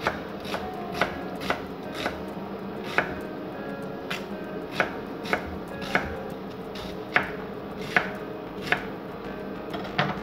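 Kitchen knife chopping brown onion on a wooden cutting board: sharp, irregular knocks of the blade against the board, about one or two a second.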